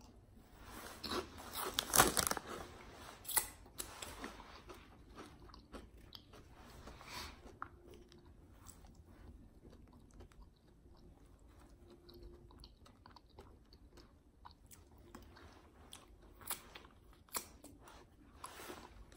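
A person crunching and chewing potato chips, loudest and crunchiest about one to three seconds in, then softer chewing with scattered mouth clicks and a few more crunches near the end.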